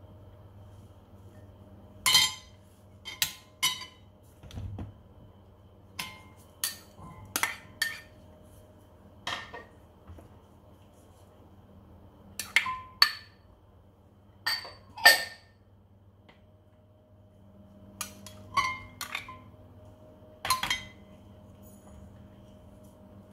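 A serving spoon knocking and scraping against white ceramic bowls as beans and chickpeas are scooped and tipped into a serving dish. Irregular sharp clinks come in small clusters, some ringing briefly.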